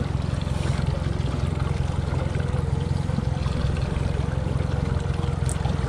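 Fishing boat's engine running steadily at trolling speed, a constant low hum, with water washing against the hull.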